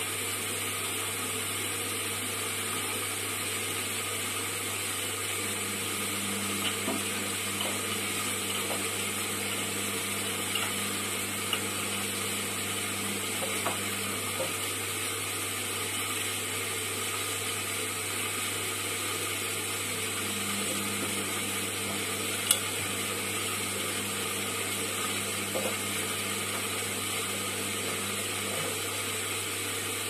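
Indesit IWUC 40851 front-loading washing machine in its wash phase: the motor turns the drum of wet laundry in spells of several seconds with pauses between, over a steady hum, with a few light knocks from the tumbling load.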